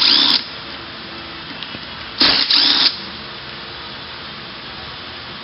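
Cordless drill run in two short bursts, one ending just after the start and another about two seconds in lasting under a second, backing out the bolts of a transmission's small rear cover.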